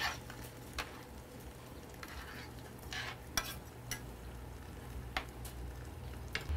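A metal spoon stirring rice in a cast-iron pot as hot water is poured in from a kettle, with a steady hiss and the spoon clinking against the pot several times.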